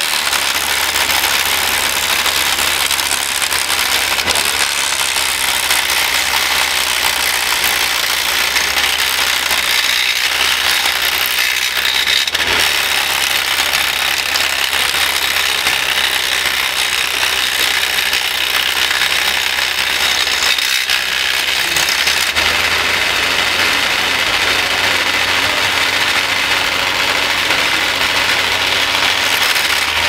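Scale-model wood chipper running steadily, its cutter shredding branches and blowing a stream of chips into the trailer, with a constant loud rattling hiss over a low hum.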